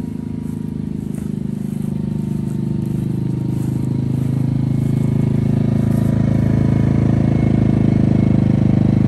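RYOBI RYI2322E inverter generator's engine running at a steady speed. It grows steadily louder as it is approached, from about 63 to about 73 dB on a sound meter.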